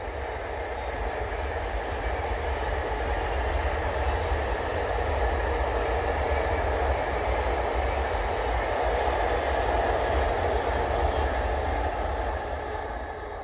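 Loaded container wagons of an intermodal freight train rolling over a steel girder bridge, a steady run of wheel noise that fades near the end as the last wagons pass.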